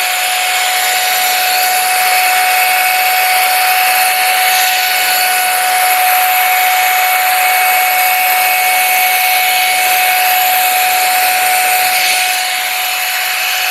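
Handheld hot air brush (hair dryer-styler) running steadily, blowing air. Its fan motor gives a steady whine over the rush of air, easing off slightly near the end.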